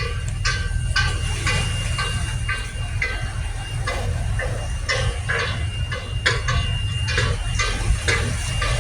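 A vehicle running on the move, with a steady low rumble and a sharp ticking about twice a second.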